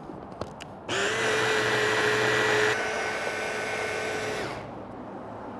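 Kenwood hand-blender motor unit on its mini chopper bowl blending herb paste and olive oil into a smooth emulsified sauce. A few light clicks as it is set in place, then the motor whirs for about three and a half seconds, easing slightly partway through, and winds down.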